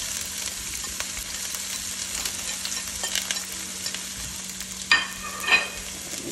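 Chopped onion and garlic sizzling as they hit hot oil in a sauté pan. Near the end come two sharp, ringing clinks about half a second apart.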